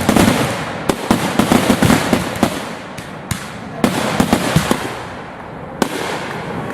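Fireworks finale: firework cakes and salutes firing a rapid barrage of sharp bangs over continuous crackling, then thinning out into a few separate loud reports.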